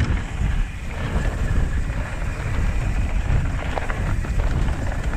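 Wind rumbling on the microphone of a mountain bike descending fast, with the rolling noise of the bike on a dirt trail. A few sharp knocks and rattles come about four seconds in.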